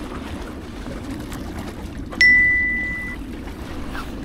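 Steady low wash of the sea against a tetrapod breakwater. About two seconds in, a single clear bell-like ding rings out and fades over about a second.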